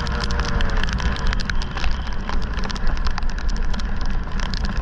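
Vehicle riding with a heavy low rumble and a faint engine note that falls slowly in pitch over the first couple of seconds. Many short sharp clicks and knocks are scattered throughout.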